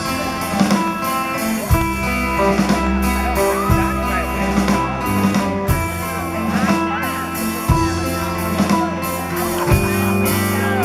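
Live band playing a slow song's instrumental introduction: sustained chords and bass notes, with a drum hit about every two seconds.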